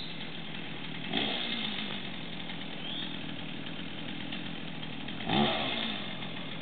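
Chainsaw engine running steadily, revved up briefly about a second in and again, more strongly, about five seconds in.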